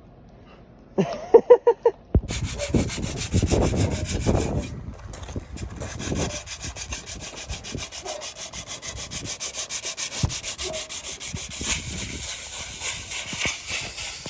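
Hand sanding a rusty metal mini bike frame: sandpaper scraping in quick, even back-and-forth strokes, about four or five a second. A few short pitched sounds come just before the sanding starts, about a second in.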